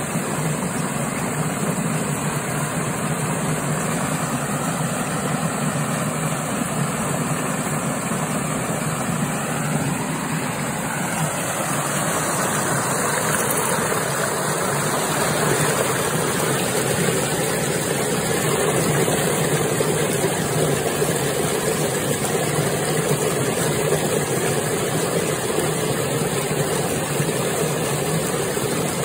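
Fast-flowing water rushing steadily down a narrow channel: a loud, even rush.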